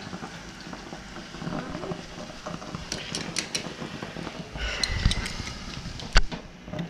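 Kitchen clatter of metal forks and a frying pan: a few light clinks about three seconds in, a low rumble with more clinks around five seconds, and a single sharp knock about six seconds in, the loudest sound.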